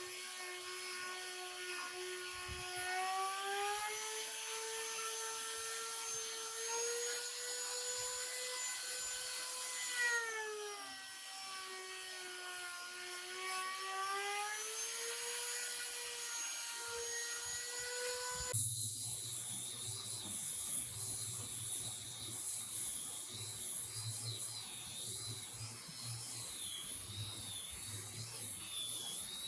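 Electric power tool motor whining steadily, its pitch sagging for a couple of seconds about ten seconds in as the tool takes load. About two-thirds of the way through it cuts abruptly to a different steady machine hum with a high whine.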